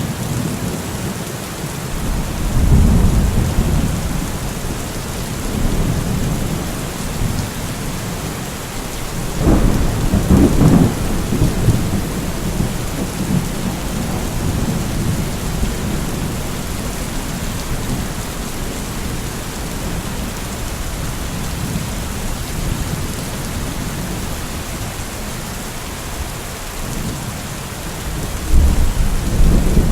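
Steady heavy rain falling, with rolls of low thunder rumbling up a few seconds in, again around ten seconds in with a sharper crack, and once more near the end.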